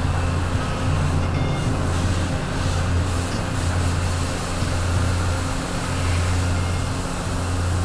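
A machine running steadily: a low hum with an even hiss over it and no break.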